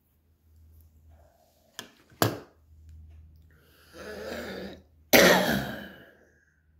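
A man coughing after drawing on a cigarette: two short sharp coughs about two seconds in, then a longer cough about four seconds in and the loudest one about five seconds in, fading away.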